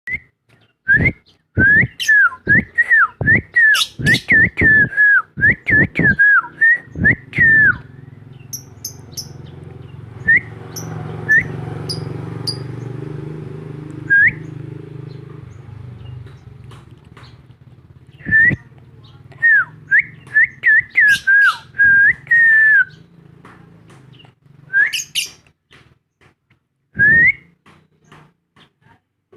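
Lovebird calling: rapid runs of short, shrill chirps, each sweeping up and down in pitch, in clusters with a long gap in the middle, where a low steady rumble is heard instead.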